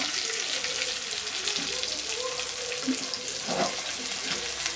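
Masala-coated seer fish (vanjaram) steaks shallow-frying in oil on a black iron tawa, sizzling steadily.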